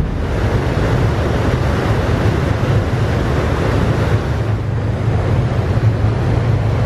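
The ferry MS Henry-Guisan under way: a steady low drone from its diesel engines and propeller, with the rushing wash of the churning stern wake and wind buffeting the microphone.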